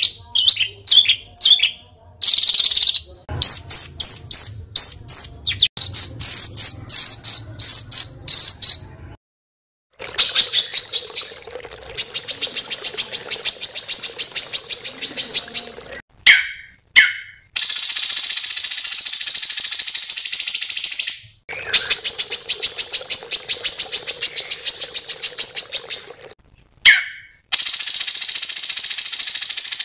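Small songbirds' rapid, high buzzing trills in long runs of several seconds each, broken by short pauses. The first few seconds hold shorter chattering notes; after a brief silence about nine seconds in, the trills become longer and steadier.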